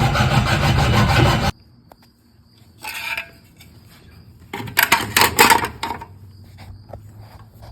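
A saw cutting through a wooden rail of a drop-down attic ladder to trim its leg to length, stopping sharply about a second and a half in. A few seconds later comes a short clatter of sharp knocks.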